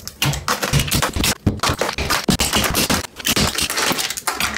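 A mallet knocking tile-leveling clips off a marble tile wall: a quick, irregular run of sharp knocks and snaps as the clips break off and the plastic wedges fall away.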